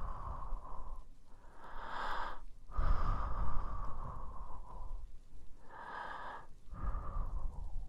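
A person breathing slowly and softly right into an ASMR microphone: long exhales blown at the mic, the air rumbling against it, alternating with two shorter, hissier inhales.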